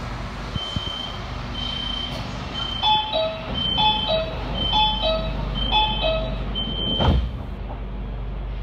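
Metro train door-closing warning: a high beep repeating about once a second, joined about three seconds in by a repeating two-note high-low chime, ending about seven seconds in with a single thud as the doors shut, over the steady hum of the electric train.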